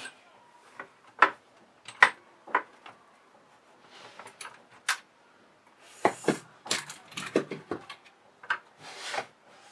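Metal lock hardware clicking and clinking as the parts are handled and set in place, in irregular separate knocks with a busier run of clicks and rustling about six seconds in.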